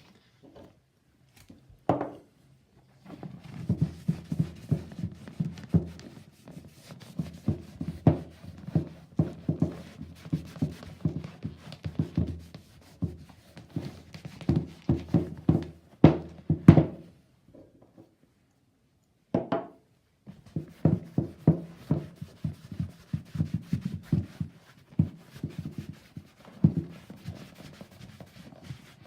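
Cloth rubbing cleaner over a leather riding boot in quick, uneven strokes, with a pause about two-thirds of the way through.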